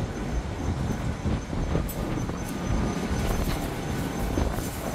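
Monsoon storm wind buffeting the microphone: a steady low rush of noise that swells and eases a little.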